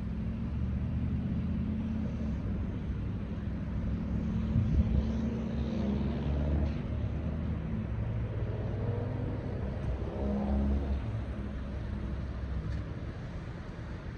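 Diesel locomotive engine working with a low rumble that swells about five seconds in and again near ten seconds, when its pitch briefly rises.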